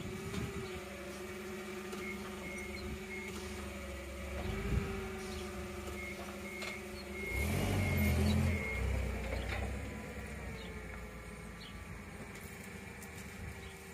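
An engine running steadily, with a louder rumble for a couple of seconds past the middle. Short high electronic beeps sound a few times in the first half.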